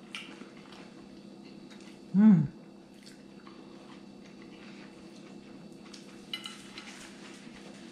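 Two people eating sandwiches: faint chewing, mouth and plate sounds with small clicks, over a steady low hum. A short vocal sound, like a 'mm', about two seconds in is the loudest moment.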